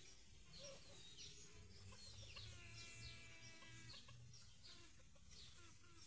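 Faint birds chirping on and off, with one chicken's long call lasting about a second and a half, about two seconds in.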